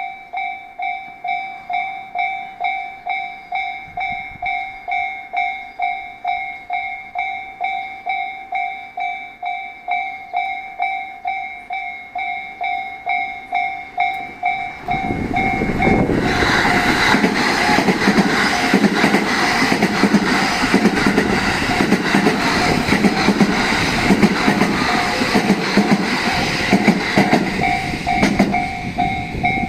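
Japanese level-crossing warning bell ringing about twice a second. About halfway through, a 10-car 17000 series electric train rumbles through the crossing with rhythmic wheel clatter, then moves off while the bell keeps ringing.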